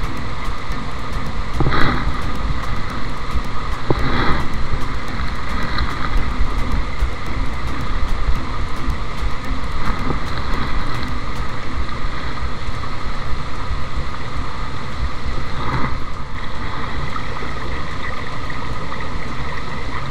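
Small stream running over stones, a steady rushing of water, with wind rumbling on the microphone. A few short louder bursts come twice in the first few seconds and once later.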